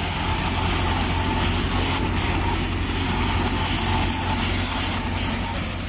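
AJAY grain thresher running and threshing: a loud, even machine din with a steady low hum and a faint steady whine.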